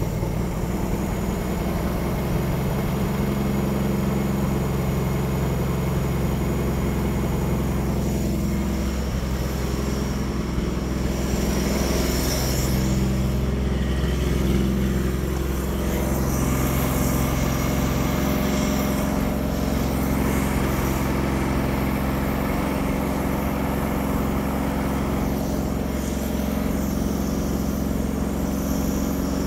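1957 Chevrolet engine idling steadily on fresh oil after its first oil change in some 40 years.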